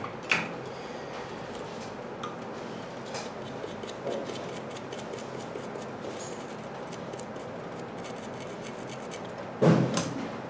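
Small metal tools clicking and tapping against a circuit board and workbench during soldering work, over a steady background hiss. There is a sharp click at the start, scattered light ticks through the middle, and a louder knock near the end.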